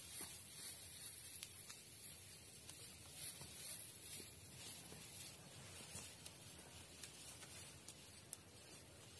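A high-pitched insect chorus pulsing steadily, easing off in the second half, with faint rustling and a few light clicks of gear being handled.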